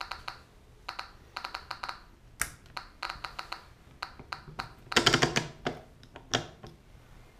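SV500 Geiger counter clicking from its loudspeaker as the SBT-10 probe counts a radioactive sample: irregular sharp clicks, often in quick runs of several. About five seconds in, a louder clatter of handling and switch-turning on the counter, after which the clicking stops as the counter is switched off.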